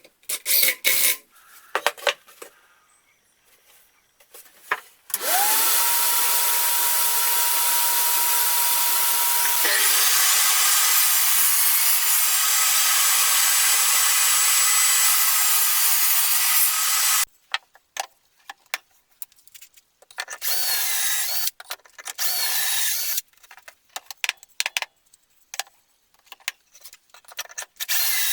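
An electric power tool working wood. It spins up with a rising whine, runs steadily for about twelve seconds and then stops. Before it come scattered knocks, and after it short bursts of scraping.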